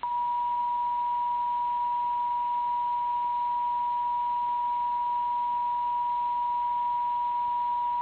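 NOAA Weather Radio's 1050 Hz warning alarm tone: one steady, unbroken high tone, the alert signal that comes before a severe thunderstorm warning broadcast.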